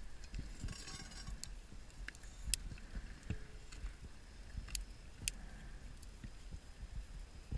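Underwater sound of a scuba diver: a brief hiss of an in-breath through the regulator about a second in, over a steady low rumble, with a few sharp clicks and taps of gear against the steel.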